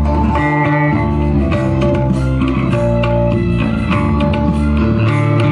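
Loud music played through stacks of outdoor sound-system loudspeakers with a heavy bass line, the rig being run at volume in a sound-system contest that judges clarity and loudness (SPL).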